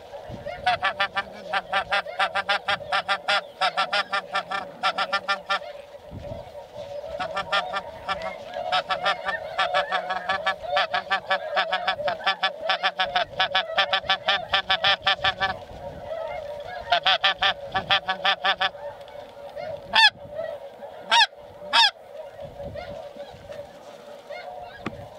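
Snow goose calls: a dense, rapid chorus of high honks in three long stretches, then three loud single calls near the end.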